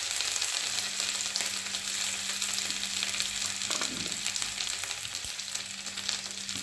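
Grated ginger sizzling and frying in hot ghee in a pan, a dense crackling hiss that eases a little over the seconds.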